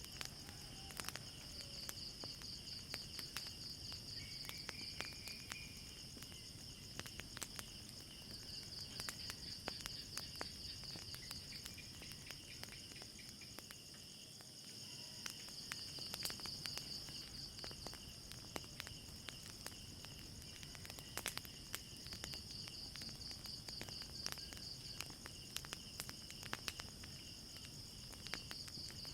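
Night insects, crickets or similar, trilling steadily in pulsing runs a few seconds long, over scattered sharp pops and crackles of a burning fire.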